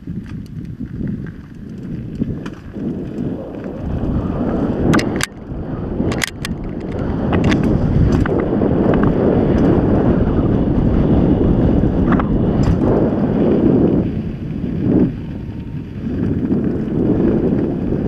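Wind buffeting a GoPro's microphone and mountain bike tyres rumbling over a dirt singletrack at speed, growing louder over the first several seconds as the bike gathers pace. Several sharp clacks and rattles stand out as the bike jolts over bumps.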